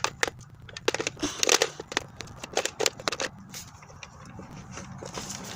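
Plastic clicks and knocks from a Nerf Rival Jupiter blaster and its bipod being handled and fitted together, in a quick run that thins out after about three seconds.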